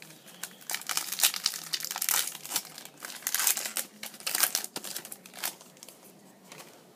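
Trading card pack's foil wrapper crinkling and tearing as it is ripped open, a dense run of crackles that dies down near the end.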